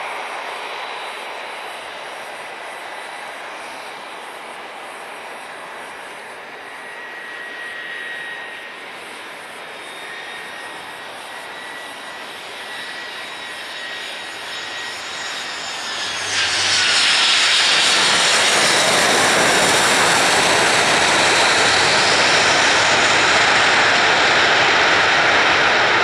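Airbus A319-111's CFM56 turbofans whining steadily on final approach. About two-thirds of the way through, just after touchdown, the whine drops and a much louder, wide rush comes in and holds as reverse thrust is applied on the landing roll.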